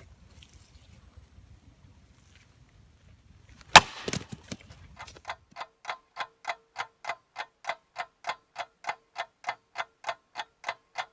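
An axe strikes a chunk of firewood once, sharp and loud, a little under four seconds in. About a second later an even ticking starts, about three ticks a second, like a clock.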